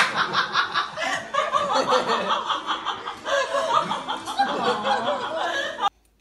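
People laughing and chuckling, the sound cutting off abruptly near the end.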